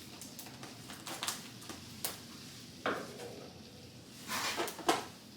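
Light plastic knocks and clatters from seed trays and pots being handled, with a few sharper knocks about three seconds in and again near the end.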